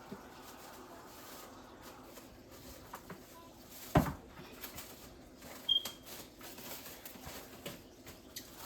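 Kitchen handling sounds: scattered light clicks and rustles, with one sharp loud knock about four seconds in and a brief high chirp a couple of seconds later.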